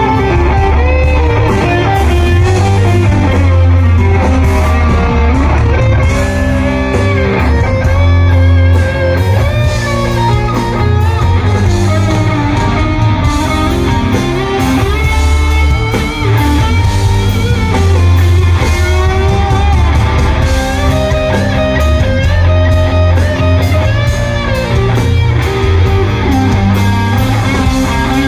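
Live rock band playing loudly through a PA: electric guitars over bass and drums, with a heavy, steady low end.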